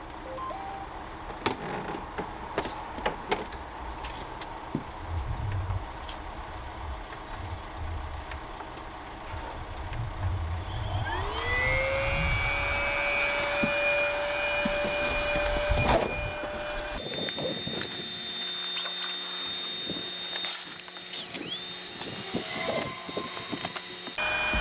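An OutdoorMaster 'The Shark' electric SUP air pump being started: a few short beeps and handling knocks, then about 11 seconds in its motor spins up with a rising whine that settles into a steady running drone as it begins inflating a paddleboard.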